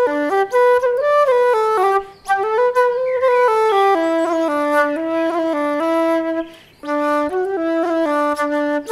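Background music: a flute melody of held, stepping notes in phrases, with short breaths between phrases about two seconds in and again near seven seconds.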